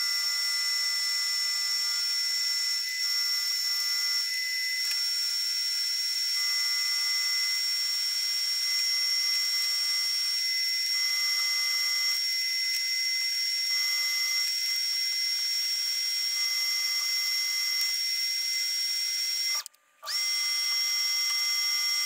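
Electric heat gun running with a steady high-pitched whine and a hiss of blown air. It cuts out for a moment near the end and starts back up with a brief rising whine.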